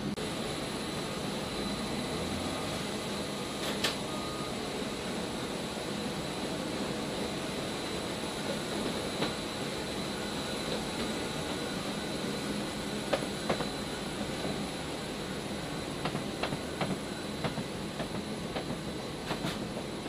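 C-130J Super Hercules turboprop engines running, heard inside the cargo hold with the rear ramp open: a steady noise with a thin high whine. Sharp metallic clicks and knocks come once about four seconds in and several times near the end.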